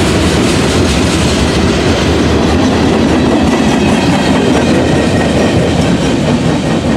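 Freight train cars rolling past at close range, a loud, steady noise of wheels running on rail.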